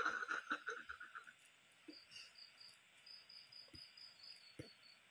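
Crickets chirping in short, evenly spaced high pulses, clearest in the second half, with a few faint knocks. In the first second or so there is a brief, louder rapid pulsing sound.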